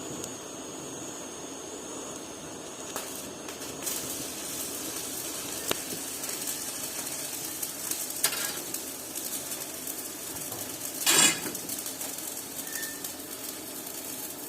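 Argon-shielded (TIG) welding arc sizzling steadily, with a few sharp metallic clicks and one short, louder burst about 11 seconds in.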